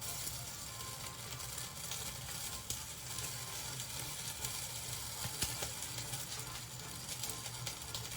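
Food sizzling and crackling in a hot pan, a steady dense hiss full of small pops.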